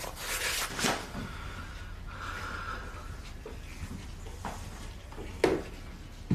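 Soft breathing and sniffing, with a sharp short knock about five and a half seconds in.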